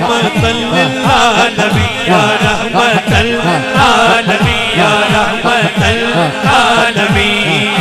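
Male voice singing a naat in long, wavering, ornamented notes, over men chanting a low repeated phrase in a steady rhythm, about twice a second.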